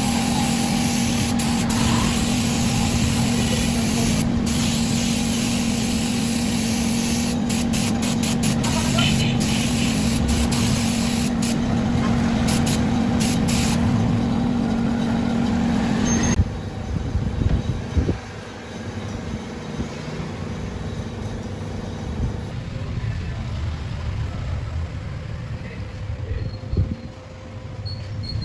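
Steady hiss of compressed air over a machine hum, with a few clicks, cutting off suddenly a little past halfway; quieter noise and occasional clicks follow.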